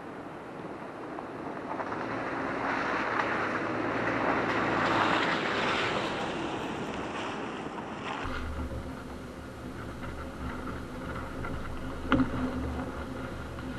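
A 2020 Subaru Crosstrek with all-terrain tyres driving past on a dirt road: its flat-four engine and the tyres on the dirt swell to a peak about five seconds in and fade away. About eight seconds in this gives way to the steadier drone of the same car heard close up along its side, with a single knock near the end.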